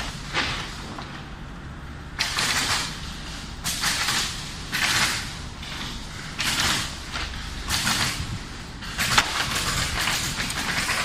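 Pallet nailing machine station being loaded with wooden boards: short hissing, rushing bursts recur about every second over a steady low machine hum, with one sharp knock near the end.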